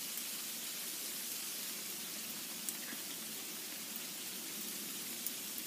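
Steady hiss of the outdoor air, with no distinct event, broken by a couple of faint ticks.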